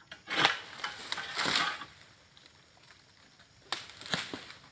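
Crunching, rustling noise of dry oil palm fronds, in two bursts: one lasting about two seconds at the start and a shorter one near the end.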